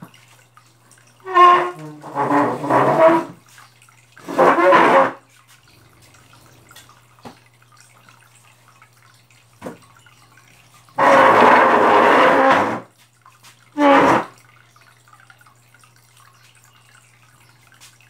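Aquarium pump humming steadily, with water dripping into the tank as a few faint clicks. Several loud bursts of a pitched, wavering sound, up to about two seconds long, break in over it about a second in, near 4 s, around 11 s and at 14 s.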